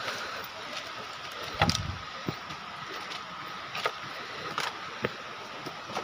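Footsteps climbing a dirt and rock trail: a few scattered scuffs and knocks of shoes on ground and stone, over the steady hiss of a small stream running down the hillside.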